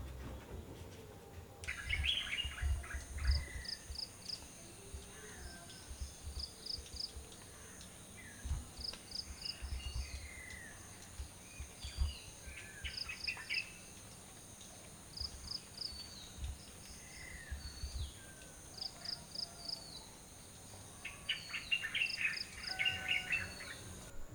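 Birds chirping and calling with short rising and falling notes, denser near the start and the end, over a steady thin high-pitched hum, while a quick three-pulse high call repeats every two seconds or so. A few low thumps come and go underneath.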